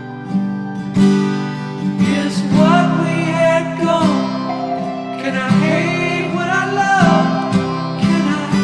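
Background music: acoustic guitar strumming, with a wordless sung melody in the middle.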